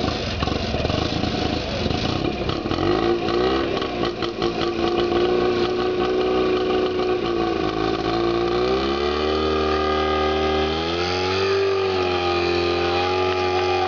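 Small garden tractor's engine running hard at high revs, rough at first and then steady, its pitch sagging and then climbing twice in the second half as it is opened up under load.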